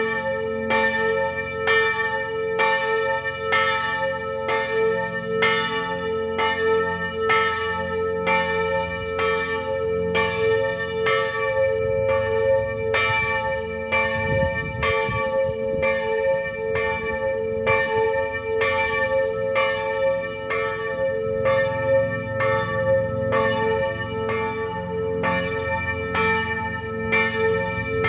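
Church bells pealing, struck about twice a second, their tones ringing on and overlapping into a continuous sound.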